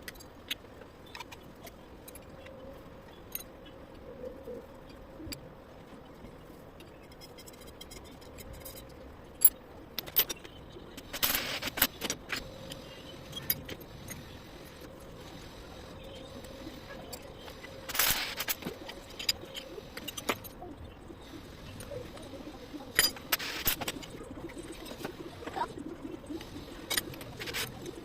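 Metal tools and engine parts clinking, with scattered sharp clicks and a few longer bursts of clattering or scraping about a third of the way in, near the middle and toward the end.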